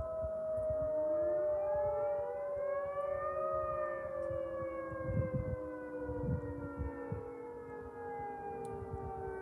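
Federal Signal 2T22 dual-tone electromechanical siren sounding, a chord of several tones that climbs for the first few seconds and then slides slowly down, in a blast the uploader calls failed.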